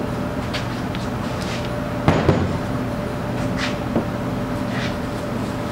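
Parts and tools being handled on a metal-working bench: a knock about two seconds in, a lighter knock later, and several short scrapes and rustles, over a steady background hum.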